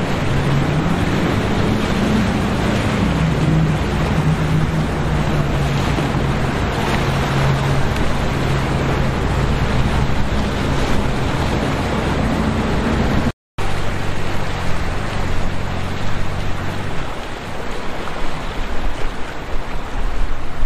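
Powerboat engines running at speed: a steady drone under loud wind and water noise. The sound cuts out for an instant about two-thirds of the way through, and the engine drone fades out near the end, leaving wind and surf.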